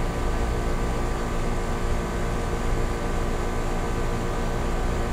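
Outdoor air-conditioning condensing units running: a steady mechanical hum with several held tones over an even rush of noise, unchanging throughout.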